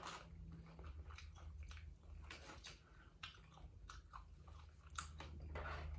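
Quiet chewing and biting on chicken wings, with scattered small clicks and crunches from mouths and fingers, over a low steady hum.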